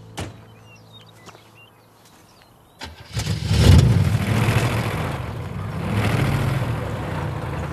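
A car engine with a hole in its muffler starting up about three seconds in, a sudden loud, rough exhaust rumble that keeps running loud. Before it there is only a click and a few faint chirps.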